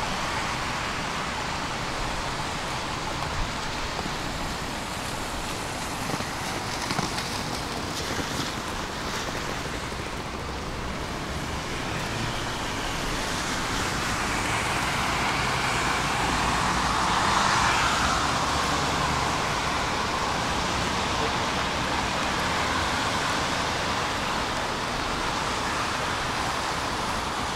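Road traffic on rain-wet streets: a steady hiss of tyres on wet asphalt, swelling as a vehicle passes a little past halfway.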